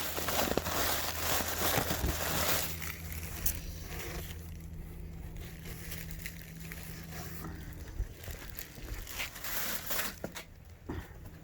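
Cardboard packaging being handled and opened: crinkling, crushing and tearing of box and packing material. It is busiest in the first couple of seconds, quieter in the middle, with more crackling near the end, over a faint steady low hum.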